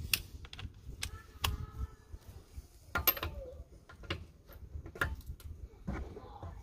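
Scattered sharp clicks and clacks from a torque wrench being handled and its socket set onto a car wheel's lug nut, one to check whether the nut reaches 120 foot-pounds.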